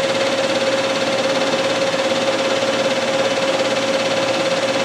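Manual metal lathe running steadily, its spindle turning the shock shaft, with a constant whine over the machine's running noise.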